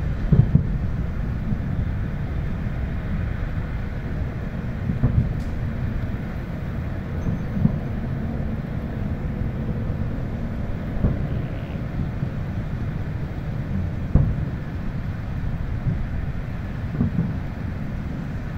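Fireworks going off far away: a short, sharp bang every few seconds, about six in all, over a steady low rumble.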